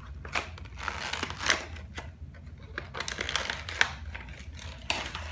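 Small cardboard toy box being opened by hand: irregular rustling, scraping and crinkling of the packaging, with a few sharp clicks.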